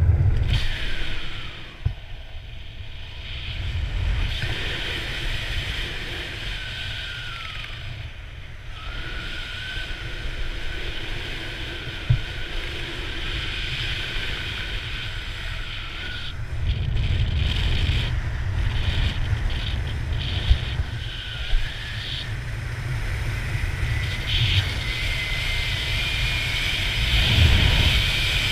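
Wind buffeting a camera's microphone during a parachute descent under an open canopy: a low rumble that swells and eases, with a faint whistling tone that slides up and down in pitch.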